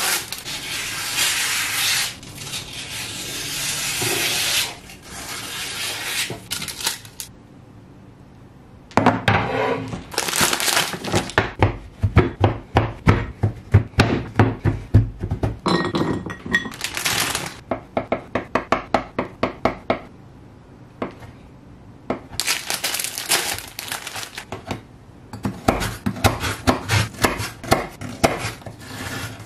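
Baking paper rustling as it is pulled off the roll and torn, then a large kitchen knife chopping through a block of milk chocolate on a wooden chopping board in quick repeated strokes, about two or three a second, and near the end knife chops crunching through Scotch Finger biscuits on the board.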